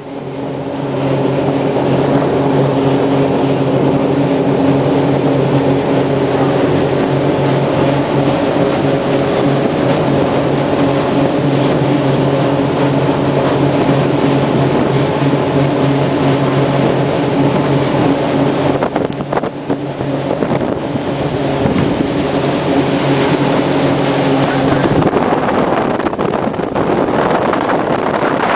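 Motorboat under way: a steady engine tone under the rush of wind and water on the microphone. Near the end the engine tone drops away and only the wind and water rush remains.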